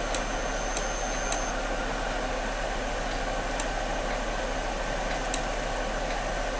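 Steady microphone hiss with a low hum, and five faint computer-mouse clicks spread across it.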